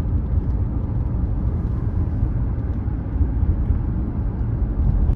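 Steady low rumble of a car being driven, heard from inside the cabin: road and engine noise.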